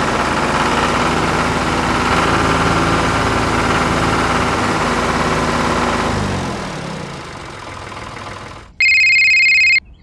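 Phone ringtone: a loud electronic ring in pulses about a second long, starting near the end. Before it, a steady noisy din fades out.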